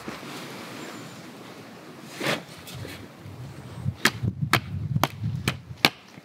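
A wooden pole being hammered into the ground: about five sharp wooden knocks, roughly two a second, near the end, after a brief scrape about two seconds in.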